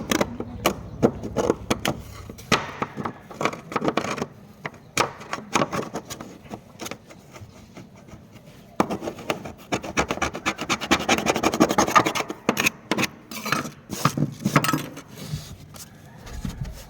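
Hand scraping on a cement roofing sheet: many short, irregular scraping strokes along a crack, cleaning it out before it is sealed.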